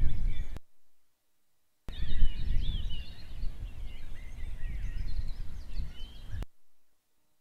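Wild birds chirping and calling over a low rumble of wind on an outdoor nest-camera microphone. The sound drops out completely for about a second shortly after the start, and again near the end.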